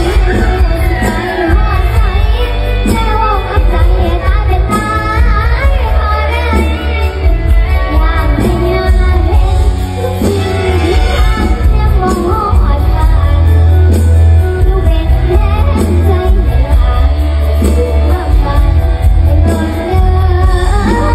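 Mor lam song: a girl's voice singing with band accompaniment over a steady deep bass.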